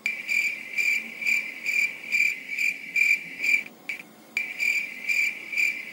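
Cricket chirping sound effect, the stock comedy cue for an awkward silence: a high chirp pulsing about twice a second. It starts abruptly and breaks off briefly a little past halfway.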